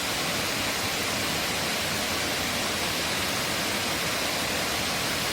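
Large waterfall in heavy flow: a steady, unbroken rush of falling water at an even level throughout.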